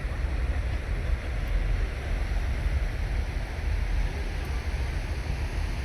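Overflow water from a full dam pouring into the overflow tunnel: a steady rushing roar, with wind buffeting the microphone.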